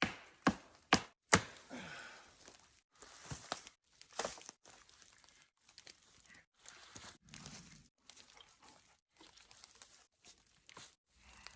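Small woodsman's axe chopping wood: three sharp strikes in the first second and a half, and a couple more knocks a few seconds in. The rest is short bouts of rustling and crackling as branches and brush are handled.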